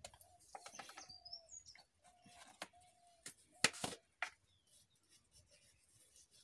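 Faint clinks and knocks of steel kitchen bowls and utensils being handled, the loudest a little past halfway, with birds chirping in the background.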